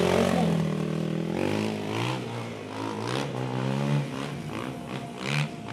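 A stunt vehicle's engine revving, its pitch rising and falling repeatedly, with a few short sharper sounds in the second half.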